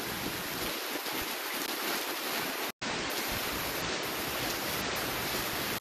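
Rain falling steadily, an even hiss, with a momentary dropout a little before halfway.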